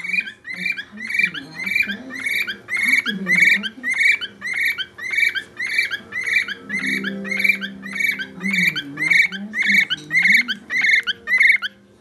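Pet parrot whistling for attention: a fast, even string of short arching chirps, about two and a half a second, that stops abruptly near the end.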